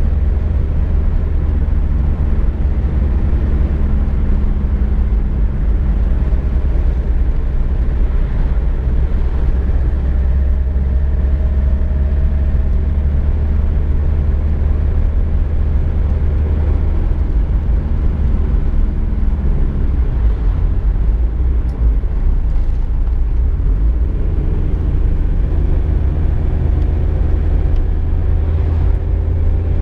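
Steady low rumble of road and engine noise inside a moving VW Golf Mk2, with a faint engine hum whose tone shifts about twenty seconds in.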